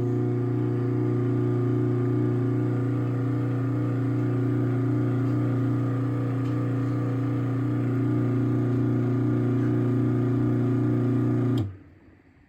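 Craftsman 1/2 hp garage door opener (139.53930DM) motor running with a steady, even hum through the drive, then cutting off near the end as the run finishes.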